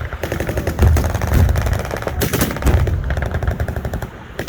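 Automatic machine-gun fire: rapid shots running together in continuous bursts, with louder reports about two seconds in and again at the end.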